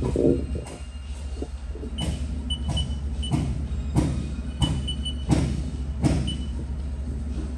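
Short high beeps from the Haas CNC control's keypad as keys are pressed, coming in small irregular runs. Under them are a steady low hum and a regular knock repeating about every two-thirds of a second.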